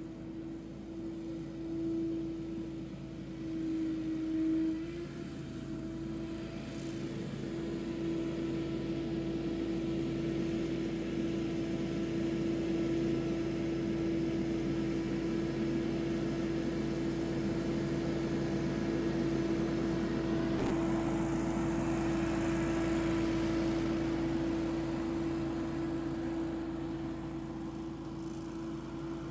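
Billy Goat P2000 stand-on leaf blower running at work: a steady engine and fan hum over a rush of blown air, growing louder through the middle and easing slightly near the end.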